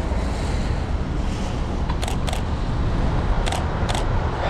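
Canon EOS 60D DSLR shutter firing: four sharp clicks in two quick pairs, about two seconds in and again about three and a half seconds in. Under them runs a steady low rumble of wind on the microphone and traffic on the wet road.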